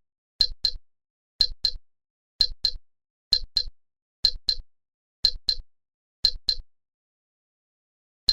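A dry double click repeated at a steady pace, about one pair a second with the two clicks a quarter second apart, eight times over, then one last single click at the very end, with complete silence between them.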